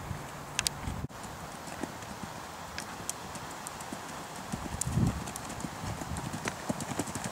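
Hoofbeats of a cantering horse on sand arena footing, an irregular run of dull knocks, with a louder thump about five seconds in.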